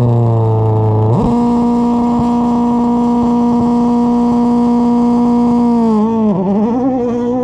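Toyota Yaris WRC's 1.6-litre turbocharged four-cylinder engine on the start line: the revs jump sharply about a second in, hold high and steady for several seconds as the car waits for the start, then waver up and down near the end.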